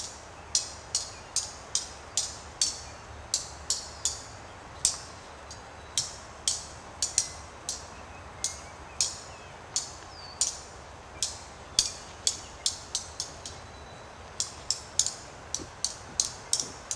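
A series of sharp, high-pitched ticks repeating irregularly about two or three times a second, over a faint steady hum.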